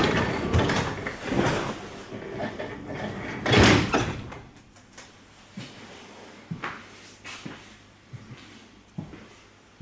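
Doors of an ED2T/ER2T electric commuter train car being opened and shut as someone passes from the vestibule into the passenger car, with one loud bang about three and a half seconds in, then a few light knocks.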